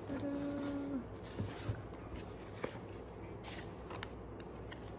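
A voice hums a short held note in the first second. Then stiff cardboard and paper rustle and tap as a ribbon-tied gift box is opened by hand and a card is lifted out.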